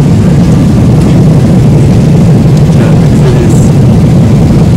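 Steady, loud, deep drone of a jet airliner's cabin in cruise flight: engine and airflow noise, even throughout.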